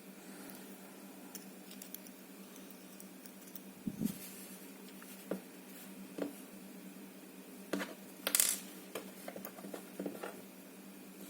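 Irregular small metal clicks and taps from handling a padlock's core and pin parts as a follower is worked into the plug, with a brief louder scrape-like rattle a little past the middle, over a faint steady hum.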